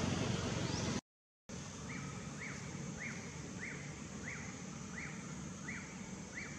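A bird repeats a short, falling chirp, a little under twice a second, over steady outdoor ambience. Before the chirps start there is a low rumble that cuts off into a moment of dead silence.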